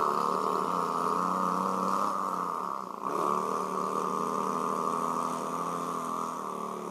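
A person imitating a diesel semi-truck engine with his voice: a steady, continuous drone with a short dip about three seconds in.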